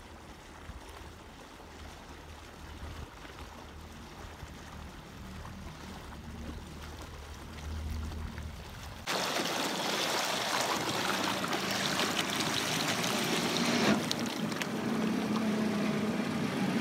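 Outboard motor on a small aluminium boat running as the boat comes in, faint and steady at first. About nine seconds in it turns abruptly much louder and closer, mixed with a hiss of water.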